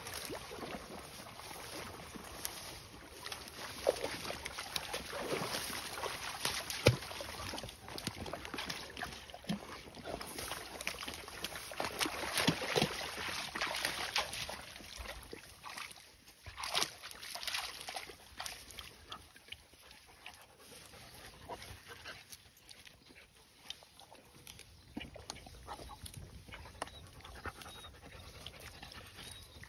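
Akbash dog wading in shallow water, its muzzle sloshing and lapping at the water in irregular small splashes, with some panting; the splashing is busiest in the first half and thins out later.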